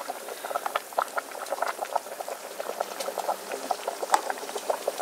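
Broth with chopped greens at a rolling boil in an electric pot: a steady bubbling with many small, irregular pops.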